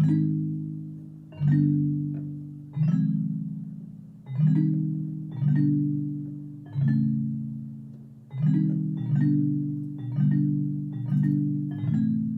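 Roland FP-30 digital piano playing a muted bell tone: low chords struck one after another, each dying away quickly, coming faster in the second half. The tone sounds slightly out of tune, as bells sometimes are.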